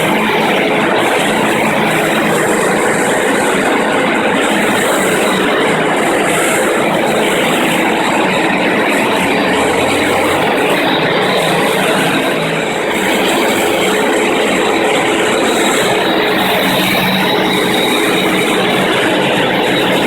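FastPrep walk-behind concrete grinder and polisher running steadily, its electric motor driving diamond tooling across a concrete floor, with a constant whine over a loud grinding hiss.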